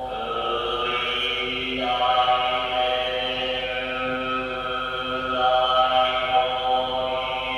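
Slow ambient performance soundtrack music: layered, sustained tones held as drone-like chords, shifting to new notes every second or two.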